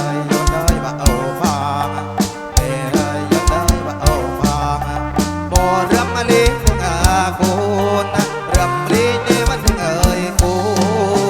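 Live kantrum music played loud through a PA: a quick, steady drumbeat over bass notes, with a wavering lead melody on top.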